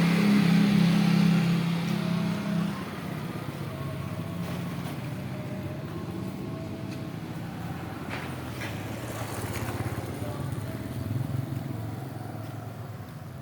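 Yamaha Mio scooter's single-cylinder four-stroke engine running, louder for the first couple of seconds and then settling to a steady idle, with a small rise in engine speed near the end.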